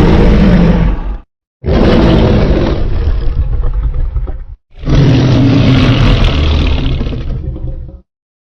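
Custom Godzilla roar sound effects. One roar's tail ends about a second in, then two loud, harsh roars of about three seconds each follow, each with a deep low end and each cutting off abruptly.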